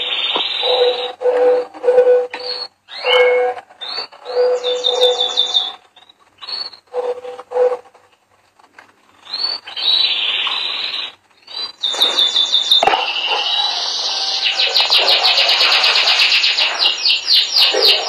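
Domestic canary singing: short whistled phrases and trills with pauses between them, a brief lull near the middle, then a long, fast rolling trill that carries through the last third.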